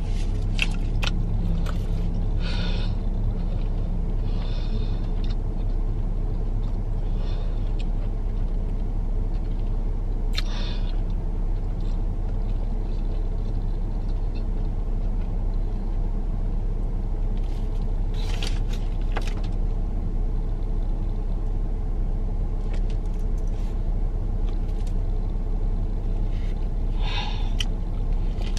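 Steady low hum of a car idling, heard from inside the cabin, with a few brief soft sounds on top and a bite into a burger near the end.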